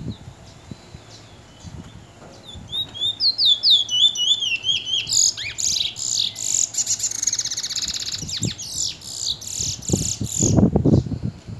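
Caged black male bullfinch (seed finch) singing its 'tee chor wheet' song: a series of quick rising whistled notes, then a loud rapid warbling trill lasting about five seconds. A few low thumps come near the end.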